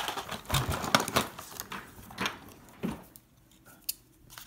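Hands rummaging through a box of art supplies: pencils, rulers and paper clattering and rustling for about three seconds, then a few small clicks.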